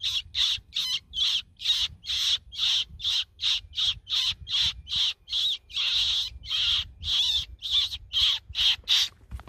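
Fox call (predator caller) used to draw a fox in to the lamp, giving a rapid, even run of short high-pitched distress calls, about three a second, that stop abruptly at the end.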